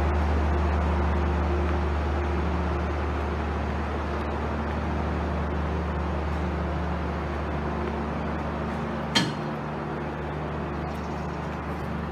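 Steady low drone of a stationary passenger train's diesel engine running at idle, fading slightly, with one sharp knock about nine seconds in.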